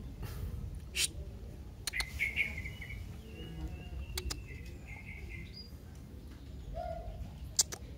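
Birds chirping, with drawn-out whistled notes about two to five seconds in, and a few sharp clicks, the loudest near the end.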